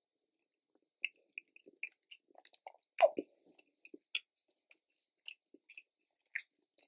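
A man chewing a big mouthful of beef stroganoff: soft, wet mouth clicks and smacks, with one louder smack about three seconds in.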